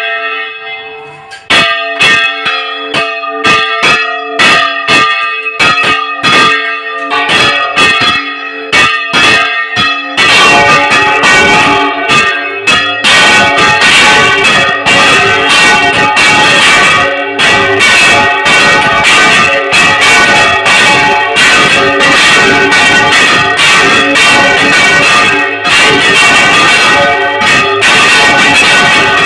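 Large bronze church bells swung full circle by hand in a general peal (volteo), clanging loudly with long ringing tones. Strikes come singly at first, a second or so in, and as more bells join they grow denser until, about ten seconds in, they overlap in a continuous clamour.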